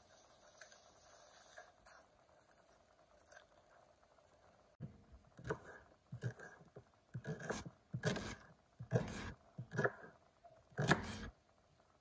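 Red onion being peeled and trimmed with a knife on a wooden chopping board: papery skin tearing and the blade scraping and knocking against the board. Faint handling at first, then about eight sharp crackling strokes from about five seconds in.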